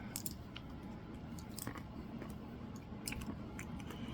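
A person chewing a small pill-shaped chocolate candy, with scattered soft clicks and mouth sounds.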